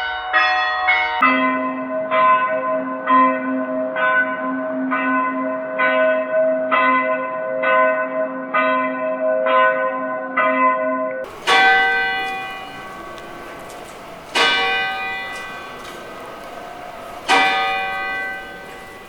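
Church bells. A quick run of bell strokes ends about a second in, and a bell is then struck steadily about once a second for some ten seconds. Near the halfway point a single large bell takes over, tolled three times about three seconds apart, each stroke ringing and slowly fading.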